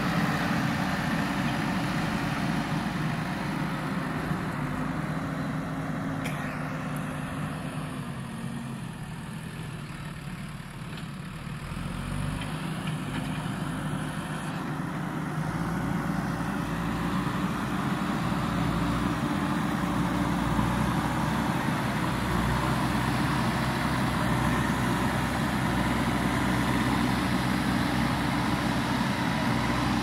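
JCB backhoe loader's diesel engine running under load as the front bucket pushes and levels soil. It dips quieter for a few seconds about a third of the way in, then runs steadily again.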